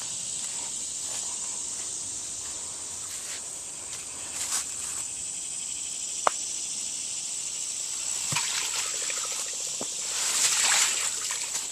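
Steady high-pitched drone of a late-summer insect chorus, with a few brief rustles about four and a half, eight and ten seconds in, and a single sharp click about six seconds in.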